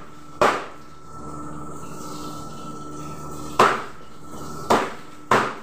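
Meat cleaver chopping through fried chicken onto a plastic chopping board: one sharp chop about half a second in, then three more about a second apart from about three and a half seconds in. A steady hum runs underneath.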